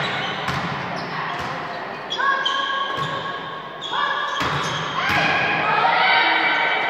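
Volleyball rally in an echoing sports hall: a few sharp thuds of the ball being struck and hitting the floor, among girls' high-pitched shouts and calls, several held for about a second.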